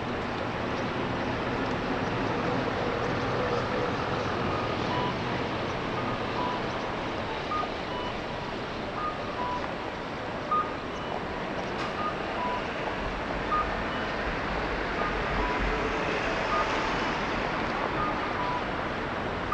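Steady, dense street-traffic noise, with a repeating two-tone electronic beep, low and high notes alternating about every half second, from about five seconds in.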